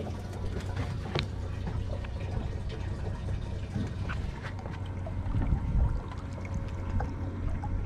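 Water trickling and splashing, with a steady low motor hum underneath.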